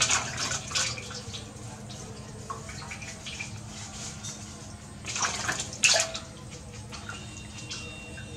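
Water splashing and sloshing in a large aluminium basin as a baby monkey is washed by hand in soapy water, with louder splashes near the start and again about five to six seconds in.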